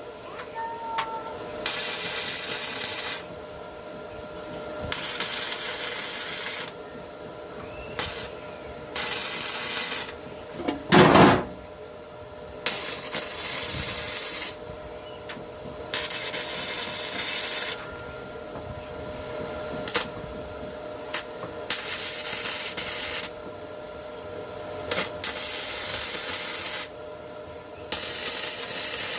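Repeated bursts of hissing, as from compressed air, each starting and stopping sharply and lasting one to three seconds, with a louder burst about eleven seconds in.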